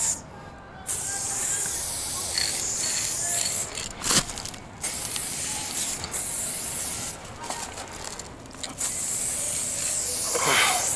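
Paint being sprayed onto a wall in about four hissing blasts of one to three seconds each, each starting and stopping abruptly as the spray is triggered and released, with a sharp knock about four seconds in.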